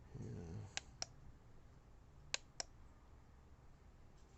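Faint sharp clicks in two pairs, the clicks of each pair a quarter of a second apart and the pairs about a second and a half apart, over quiet room tone.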